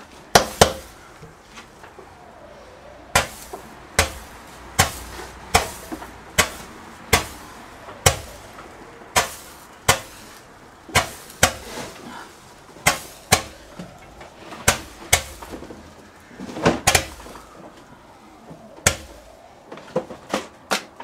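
Dancing Red Devil consumer firework firing a long string of sharp bangs, about one a second, each with a short echo, and a few close pairs.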